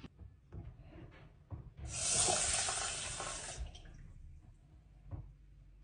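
Water running from a kitchen tap for just under two seconds, starting about two seconds in and tapering off, with a few faint knocks of kitchenware around it.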